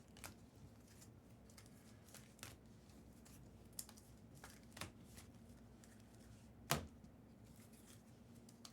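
Faint handling of trading cards: soft scattered clicks and rustles as cards are slid and set down, with one louder tap about two-thirds of the way through, over quiet room tone.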